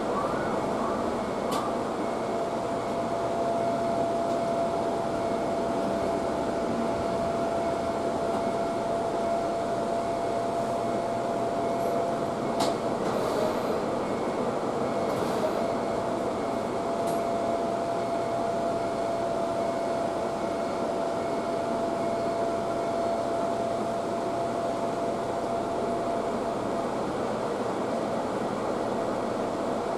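Commuter electric train running on the JR Tsurumi Line, heard from inside the car: a steady rolling rumble with a constant whine, and a few sharp clicks from the wheels and rails about halfway through.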